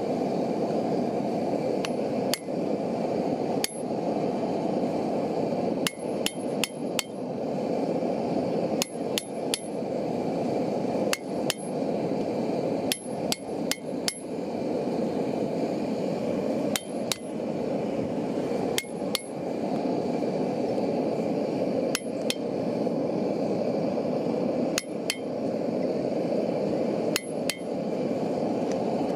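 Hand hammer striking a pointed punch held on a red-hot steel bar on an anvil: sharp metallic taps in irregular groups of one to four, each ringing briefly. A steady rushing noise runs underneath.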